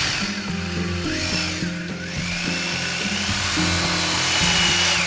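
Electric drill running while boring a hole into a wall, its motor whine dipping and rising in pitch, then winding down near the end, over background music.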